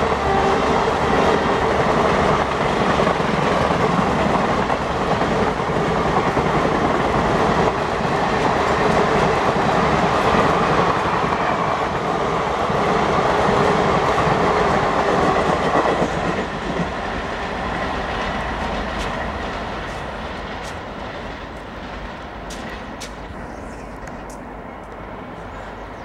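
Passenger coaches of an express train rushing past at about 110 km/h, wheels running over the track in a loud, dense rush. About two-thirds of the way through the noise drops and fades steadily as the last coaches pull away.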